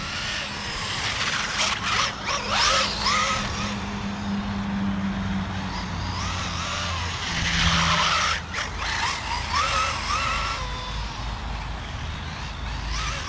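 Small RC car driving hard, its motor running up and down, with short tyre squeals as it grips through turns and two louder surges around a quarter and two-thirds of the way through.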